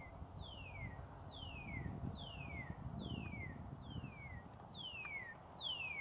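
Male northern cardinal singing: a run of about seven clear whistled notes, each sliding down in pitch, repeated a little faster than one a second.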